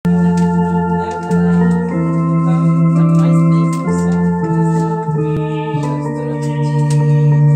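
Two-manual electronic home organ played in slow, held chords over a sustained bass note, the chords changing every second or so.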